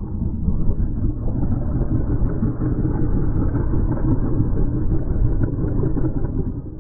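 Tyrannosaurus rex growl sound effect, built from crocodile and cassowary calls: a continuous low, grainy rumble that drops away briefly near the end.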